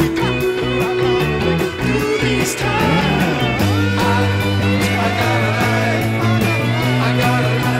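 Rock band playing an instrumental passage: electric guitar with bending notes over bass and a steady drum beat, the bass settling into long held low notes about three and a half seconds in.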